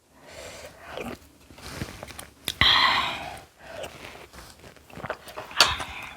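Close-miked eating sounds: biting and chewing, with sharp clicks and a louder burst of noise lasting about a second near the middle.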